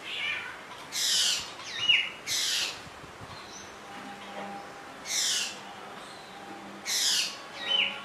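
Black drongo calling: four harsh, rasping calls that fall in pitch, spaced one to two seconds apart, with a short clear whistle slipped in twice.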